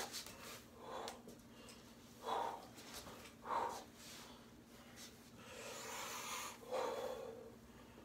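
A man's short, forceful breaths as he exerts himself in fast twisting exercise, about five in all, one longer and breathier about six seconds in.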